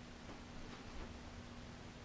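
Quiet room tone with a faint steady hum and a soft, faint bump about a second in.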